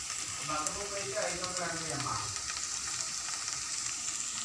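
Steady sizzling hiss of oil frying in a pan on the stove, with a faint voice in the background about a second in.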